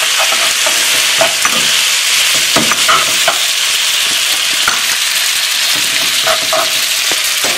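Spaghetti and bacon sizzling steadily in a hot skillet as they are stirred and tossed with a metal utensil, with scattered clicks and scrapes of the utensil against the pan.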